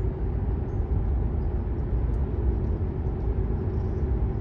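Steady low rumble of road and engine noise inside a car's cabin as it drives along a highway.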